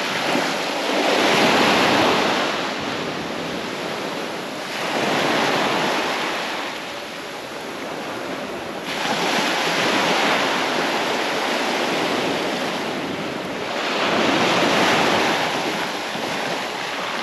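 Small waves breaking and washing up a pebbly beach, the surf noise swelling and easing about every four to five seconds.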